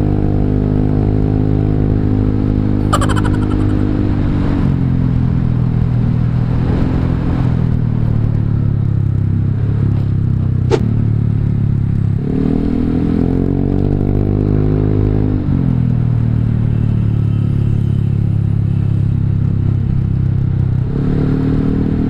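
Honda Vario 150 scooter's single-cylinder engine running through an R9 Alpha aftermarket exhaust with the dB killer removed, under way. The note falls off as the throttle closes, rises under throttle about twelve seconds in, eases back a few seconds later, and picks up again near the end. A sharp click sounds about eleven seconds in.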